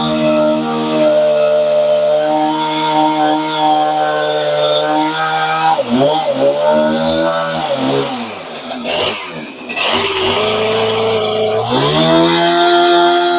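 Portable bandsaw mill's small gas engine running at steady high revs. About six seconds in it drops to a low idle, with a brief rushing noise, then revs back up near the end.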